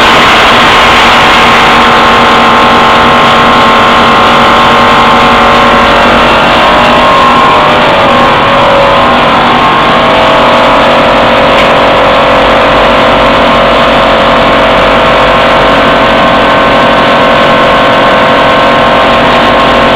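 Wood pellet production line running: a loud, steady machinery din with several whining motor tones. About midway some of the tones slide and settle at a new pitch.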